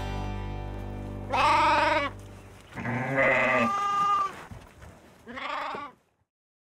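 Sheep bleating three times, each a wavering call and the middle one the longest, over a low hum that fades out in the first two seconds.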